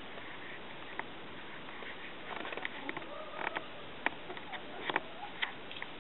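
Domestic turkeys: scattered soft clicks and ticks, thickening from about two seconds in, with a few brief faint chirpy calls over a steady hiss.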